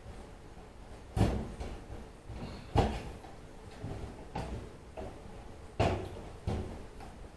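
Knocks and clunks of a dryer's cabinet panel being worked loose and pulled off by hand: four loud knocks and a few lighter ones between them.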